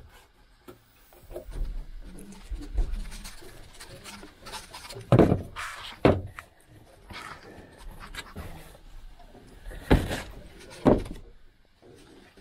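Irregular knocks, clatter and scraping of hands-on work in a small boat cabin, with four louder sharp thumps spread through.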